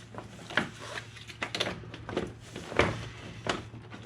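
About five separate knocks and clunks of parts being handled as the factory air filter and its plastic housing are worked loose and pulled out of the engine bay, over a faint low steady hum.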